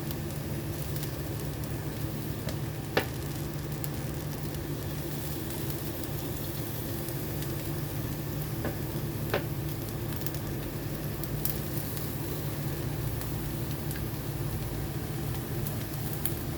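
Food sizzling steadily in a hot frying pan, with two sharp knocks, about three seconds in and again near nine seconds, the first the louder.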